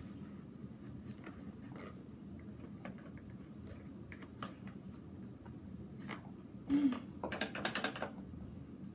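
Scattered small clicks, scratches and crunches of a clogged vacuum cleaner being poked and cleared of packed dust and debris by hand, the machine switched off. Near the end comes a short squeak, then a rasping scrape lasting about a second.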